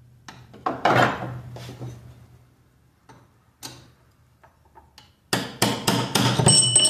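Hammer driving a long steel drift against the geartrain of a Ford Ranger's T5 manual transmission. A few separate blows come in the first couple of seconds and another about halfway, then a quick run of about eight strikes near the end, the last ones ringing with a metallic tone.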